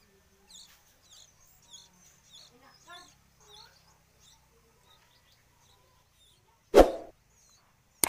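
Sooty-headed bulbul (kutilang) nestlings giving short, high begging chirps while being hand-fed, dying away after about four seconds. Near the end a single loud thump, the loudest sound, followed by a sharp click.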